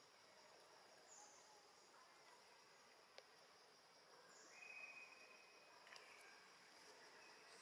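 Near silence with a faint, steady insect chirring, broken by a few short, level high tones; the strongest comes about halfway through and lasts about a second.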